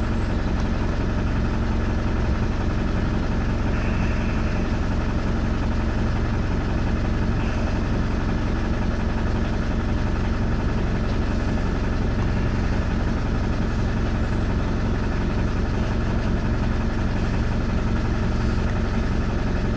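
Off-road 4x4's engine idling steadily, with no revving.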